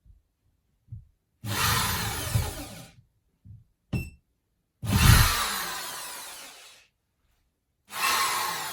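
Electric drill boring into a wall in three runs of about one and a half to two seconds, each starting sharply and trailing off, with small knocks in between.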